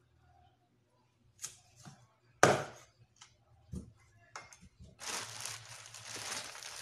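Meat cleaver chopping raw meat on a wooden cutting board: several separate chops, the loudest about two and a half seconds in. From about five seconds in, a plastic bag rustles and crinkles.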